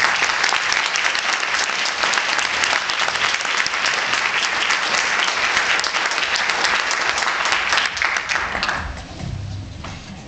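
An audience applauding: dense clapping from many people, which dies away about nine seconds in.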